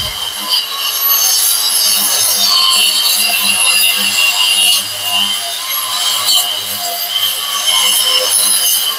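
Brushless wall chaser (wall groove cutter) running loaded, pressed into a wall as it cuts a groove: a steady high whine over loud, continuous grinding.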